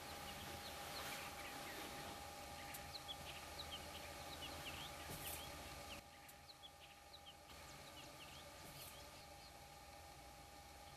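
Faint birdsong in the open: many short, quick high chirps from several small birds, over a faint steady hum. Everything gets quieter about six seconds in.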